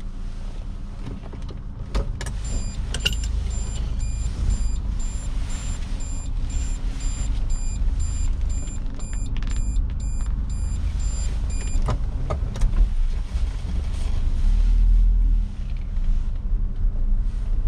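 Suzuki Jimny JA22's 660 cc turbocharged three-cylinder engine running as the car moves off slowly, heard from inside the cabin as a steady low rumble. There are a few clicks, and a thin pulsing high tone partway through.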